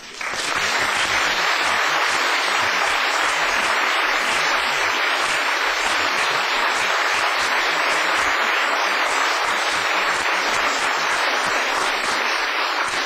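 A concert audience applauding, a steady dense clapping that eases off near the end.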